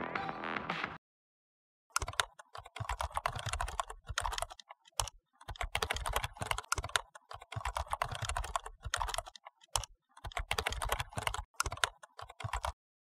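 Computer keyboard typing: rapid runs of key clicks broken by short pauses, starting about two seconds in and stopping shortly before the end. Electronic intro music cuts off about a second in.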